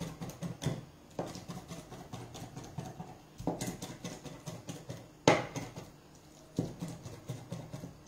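A large kitchen knife chopping raw salmon on a wooden cutting board: rapid repeated taps of the blade through the fish onto the wood, several a second, with a few louder knocks.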